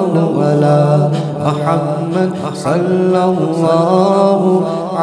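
Male voice chanting a devotional naat in long, drawn-out notes that slide in pitch, over a steady low drone.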